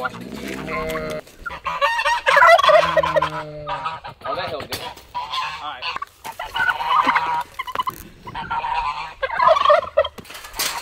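Domestic turkey tom gobbling several times, in quick warbling bursts, with a lower drawn-out animal call near the start.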